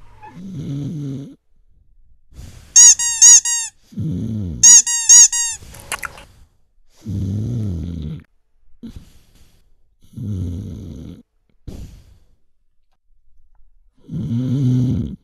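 Cartoon snoring from a sleeping toy dog: slow, low, rasping snores about every three seconds. Twice, near the third and fifth seconds, there is a quick run of loud, high cartoon squeaks, the loudest sounds here.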